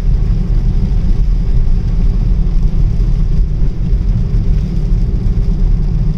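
Steady rumble of a car driving on a wet road, heard inside the cabin: low road and engine noise with a fainter tyre hiss over it.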